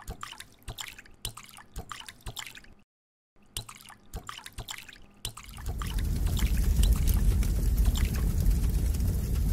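Liquid fuel dripping drop by drop from a tank tap, in separate small splashes. About halfway through, a fire starts burning, with a dense steady noise flecked with crackles that is louder than the drips.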